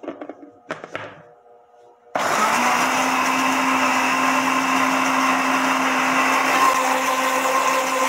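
A couple of short plastic knocks as the blender's lid and jar are handled, then an electric kitchen blender switches on about two seconds in and runs steadily. It is mixing a liquid bread batter of warm milk, egg, oil, sugar, salt and yeast.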